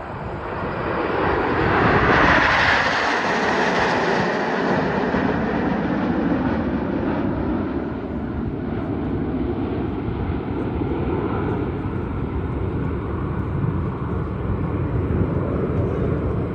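Formation of nine BAE Hawk T1 jet trainers passing overhead: a jet roar that swells to its loudest about two seconds in, its pitch falling as the jets go past, then a steady lower rumble as they move away.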